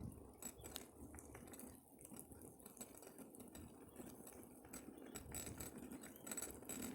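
Near silence: a faint low rumble with a few soft, scattered clicks.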